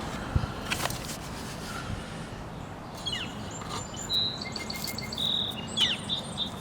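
A songbird chirping in short high notes and quick downward chirps through the second half, with a single sharp knock about half a second in.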